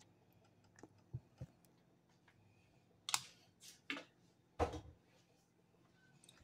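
A few scattered, short clicks and clattery knocks of kitchen utensils and containers being handled at a mixing bowl, the loudest three coming between about three and five seconds in.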